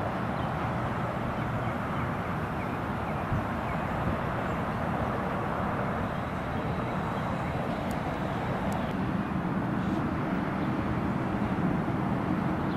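Steady low rumble and hiss of vehicle noise, with no distinct events standing out.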